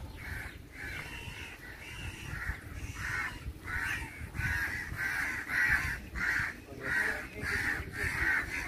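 A group of crows cawing harshly and rapidly, about two to three calls a second, growing louder from about halfway through. These are the alarm and mobbing calls of adult crows defending a sick young crow that people are reaching for in a palm tree.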